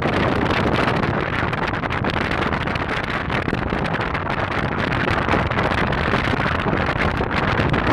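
Steady wind rushing over the microphone aboard a moving tour boat, mixed with the boat's running noise through the water.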